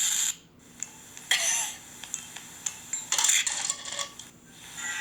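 A child's hissing mouth-made sneeze explosion at the very start, then plastic stacking cups and toys clattering in short bursts as the cup tower is knocked about.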